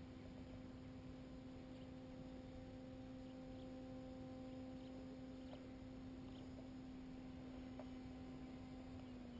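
Distant paramotor engine and propeller droning steadily overhead, faint, its pitch dropping slightly near the end.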